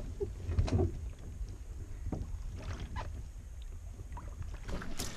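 Kevlar canoe being pushed off from shore and boarded: water sloshing against the hull with scattered knocks and bumps, over a steady low rumble.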